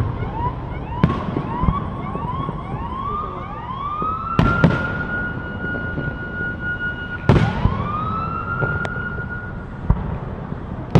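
Fireworks going off in sharp bangs, about half a dozen, over a high whistling tone. The whistle climbs in a run of short rising sweeps, holds steady, then rises and holds again.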